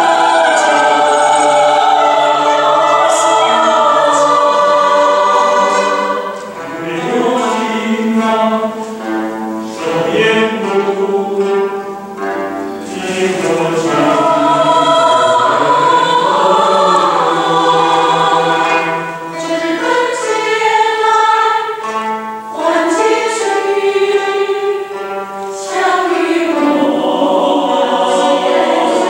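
Mixed choir singing a slow Chinese song in several parts, in long phrases with brief dips between them.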